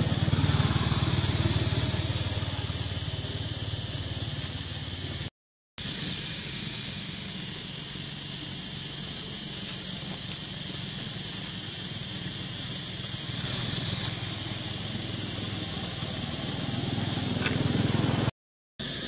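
Loud, steady, high-pitched buzzing of a cicada chorus, cut off by two brief silences, about five seconds in and near the end.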